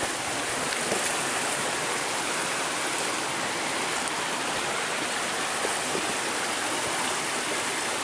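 A rocky creek's water steadily rushing and splashing over stones.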